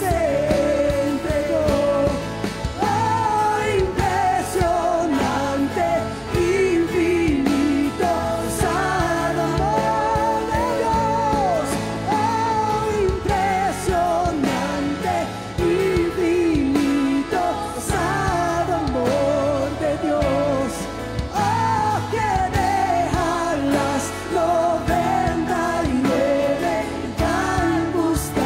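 A woman singing a Spanish-language worship song live into a microphone, backed by a band with drums.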